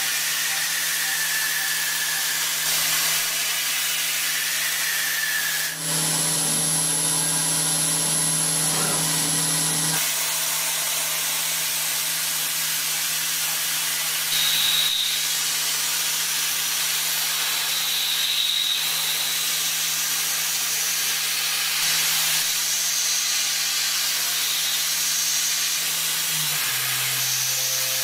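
CNC milling machine cutting a metal part with an 8 mm chamfer mill: a steady hiss over a low spindle hum. The hum grows louder for a few seconds with a high thin whine a few seconds in, and drops in pitch near the end.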